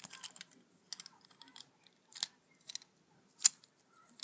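Sharp plastic clicks and taps of a knock-off Lego car and minifigure being handled, as the figure is put into the car's seat. About half a dozen scattered clicks, the loudest about three and a half seconds in.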